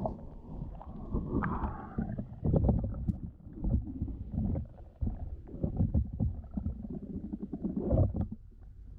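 Muffled low rumbling and irregular thuds of water moving around a submerged camera.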